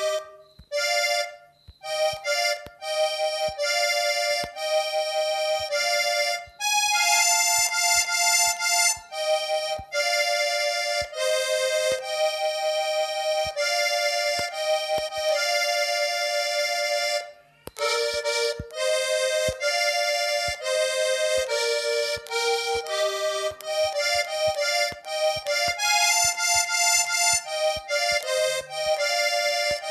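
Button-accordion sound from a phone accordion app playing a melody note by note, often two notes together, in phrases with brief pauses, the longest a little past halfway.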